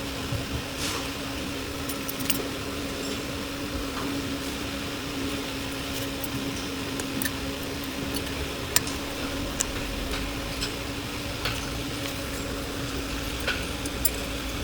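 Scattered light metallic clicks and clinks of tools and brake parts being handled, over a steady hum, with one sharper click about two-thirds of the way through.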